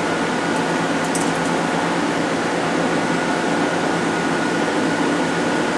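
Hwacheon Hi-Tech 700 CNC lathe running with a steady hum and a constant high whine as its turret travels back to its home position.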